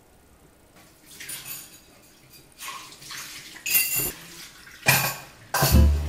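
Water splashing in a plastic basin in about five short bursts, with a light clink of dishes. Background guitar music comes in near the end.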